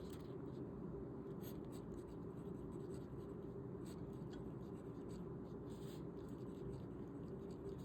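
Pen scratching faintly on paper as Chinese characters are handwritten, with a few short stroke sounds over a low steady room hum.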